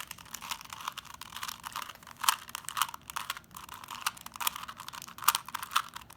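Plastic 3x3 Rubik's Cube being scrambled: quick, irregular rattling clicks of the layers turning, with a few sharper snaps.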